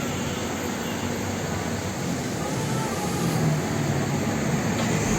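Steady road traffic noise, with vehicle engines running in a low drone.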